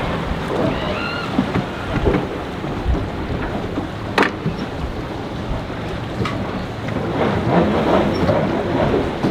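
Wind and water noise at a boat ramp, with the low hum of boat engines running underneath and a sharp click about four seconds in.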